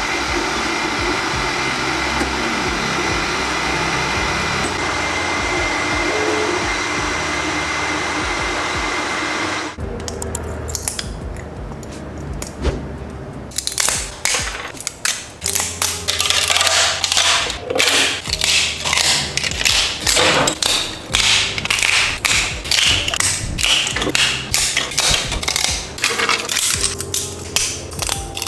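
Ender 3 FDM 3D printer running steadily, its fans and stepper motors making a whine with a few steady tones, until it stops about ten seconds in. After a short quieter stretch come rapid, dense clicks and snaps of flush cutters snipping PLA support material off a printed part.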